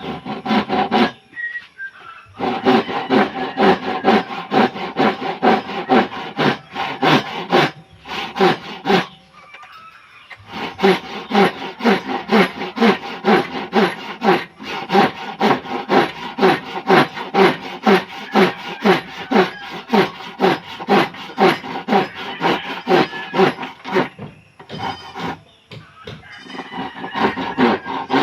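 Hand saw cutting wood in quick back-and-forth strokes, about two to three a second, with a few short pauses.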